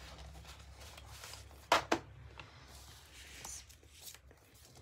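Paper and cardstock strips being handled and slid across a cutting mat, with soft rustling and two sharp taps close together just under two seconds in.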